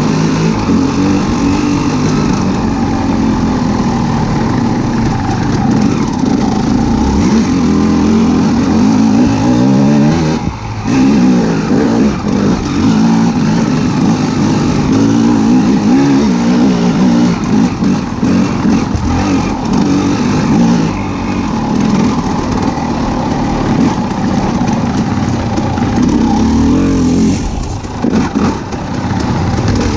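A motor vehicle's engine running and revving, its pitch rising and falling again and again, with a brief dip about ten seconds in and another near the end.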